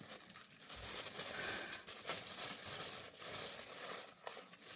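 Packaging crinkling and rustling as a new tripod is handled and unwrapped, with small clicks and taps.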